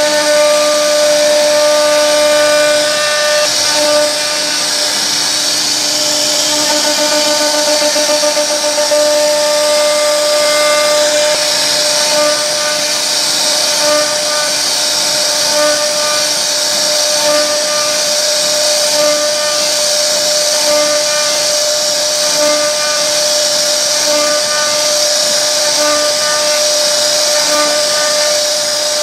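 CNC router spindle running at a steady high whine as its bit carves a twisted rope pattern into a wooden door panel, with a hiss of wood being cut. A low note comes and goes about every second and a half.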